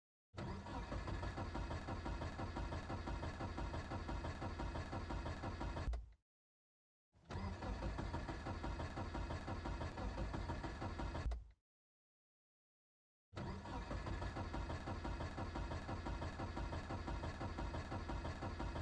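Car engine cranking on the starter without catching, in three long spells with silence between them: a cold-morning no-start.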